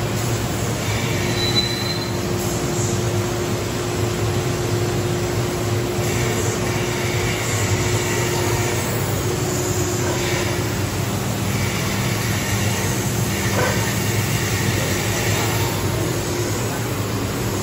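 A 600 W CO2 laser die-board cutting machine running as it cuts through thick plywood: a steady machine hum with an even hiss over it.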